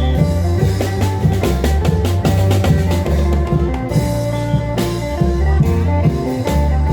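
Isan klong yao long-drum band playing: a steady drum beat over a heavy bass line, with an amplified melody line on top.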